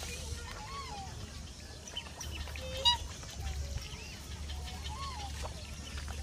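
Black swans calling: a series of short, soft rising-and-falling notes, with one louder, sharper call about three seconds in.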